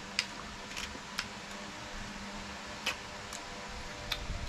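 Sparse sharp clicks and small taps as opened oyster shells are handled and picked at with the fingers, about six in all, over a faint steady hum.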